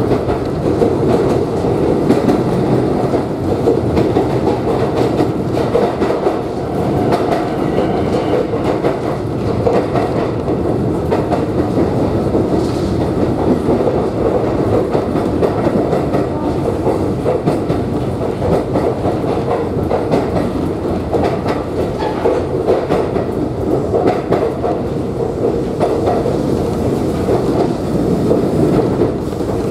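Kōnan Railway Ōwani Line electric train running, heard from inside the car: steady wheel-and-rail running noise with intermittent clicks as the wheels cross rail joints.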